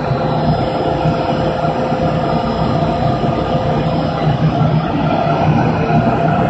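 ABA double-screw HDPE film blowing machine running: a steady mechanical hum from its extruder drives and blowers, with a constant tone held through it.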